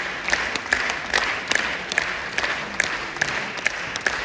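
Theatre audience applauding, with sharp claps standing out in a steady beat about twice a second.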